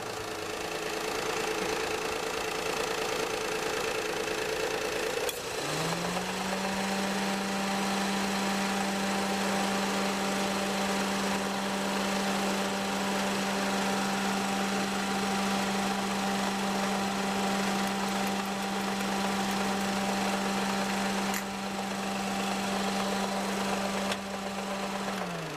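Perodua Viva engine running at idle with the air-conditioning on, its compressor belt freshly tensioned so the belt noise is gone. A steady hum that dips in pitch and comes back up about five seconds in.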